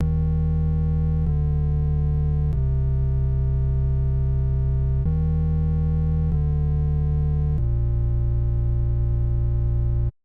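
Synthesizer playing six held, buzzy low notes in a short-short-long, short-short-long pattern, then cutting off abruptly.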